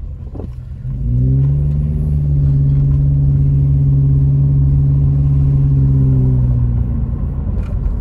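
Car engine pulling away after a turn, heard from inside the car: its note rises about a second in, holds steady for several seconds as the car drives on, and eases off near the end, over low road rumble.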